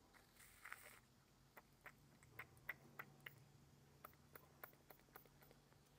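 A short, faint hiss of WD-40 sprayed through its straw into a part of a Mercury 9.9 outboard carburetor, lasting under a second. It is followed by a run of light, irregular clicks and taps from handling the part, about two or three a second, over a faint low hum.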